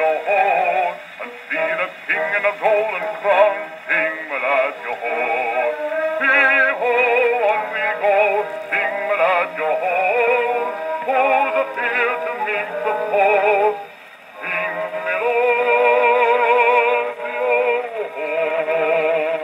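A bass singer with accompaniment played from a 78 rpm Edison Bell Velvet Face shellac record on a wind-up portable gramophone; the sound is thin, with no deep bass and little treble. The voice wavers with strong vibrato and, after a brief drop about two-thirds of the way in, holds a long note.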